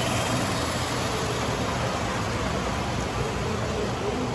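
Steady background din of a large exhibit hall: an even rumbling hiss with faint distant voices now and then.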